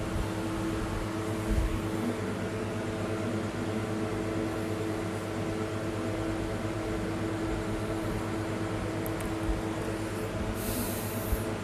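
Steady mechanical hum with a few steady tones, like a running fan or motor, and a short hiss near the end.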